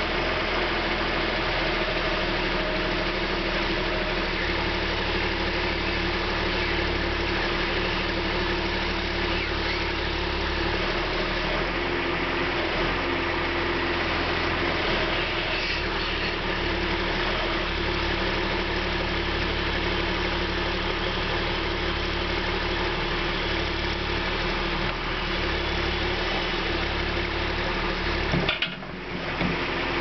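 Backhoe loader's diesel engine running steadily while the boom is swung out to the side and back, with a brief dip in the sound near the end.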